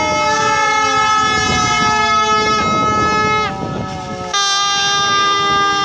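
Several horns blaring at once in overlapping long blasts, some sliding slowly down in pitch, over the noise of a marching crowd. The blasts break off about three and a half seconds in and start again nearly a second later.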